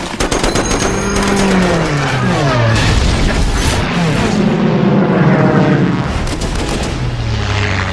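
Battle soundtrack of WWII propeller fighter planes diving past, their engine pitch dropping as each goes by, several times over, amid bursts of rapid machine-gun fire and explosions.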